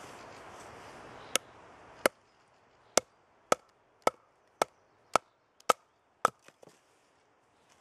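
A wooden baton striking the spine of a Knivsmed Strømeng leuku (Sámi large knife) to split a piece of wood by batoning: about nine sharp knocks, roughly two a second, with two fainter taps near the end.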